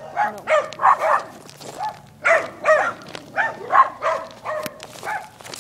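Dogs barking repeatedly in quick, irregular barks, some doubled up.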